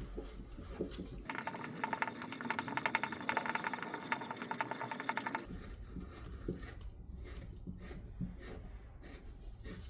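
A Groz 4-inch drill press vise being wound open by its handle: the lead screw turns and the movable jaw slides back, giving a fast, even run of small metallic clicks for about four seconds from about a second in. Scattered light knocks of handling come before and after.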